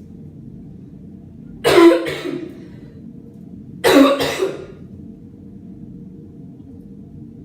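A person coughing hard in two short fits, each a quick double cough, about two seconds apart. The coughs are put on to fake coughing up blood.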